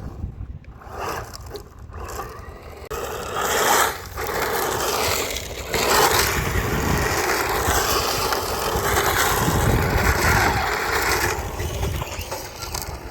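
Electric RC rally car driving over rough ground, its tyres scraping and crunching through loose surface while the motor whine rises and falls. It gets louder about three seconds in and eases off near the end.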